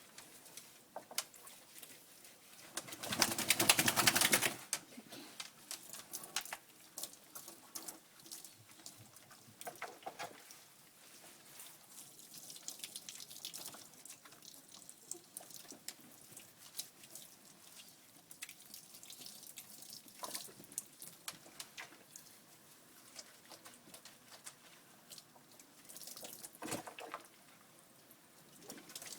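Dog being washed in a grooming bath for a second shampoo: faint scattered splashing, rubbing and clicks, with one loud rush of noise lasting over a second about three seconds in.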